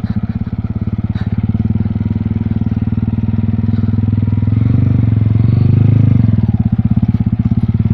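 Yamaha sport motorcycle's engine running at a slow riding pace over a rough dirt track. It grows louder a little past halfway, then eases off near the end.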